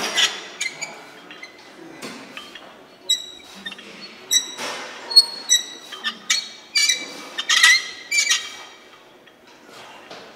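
Metal gym weights clinking and clanking: a run of sharp metallic clinks, each with a short ring, bunched near the start and again from about six to eight seconds in, thinning out near the end.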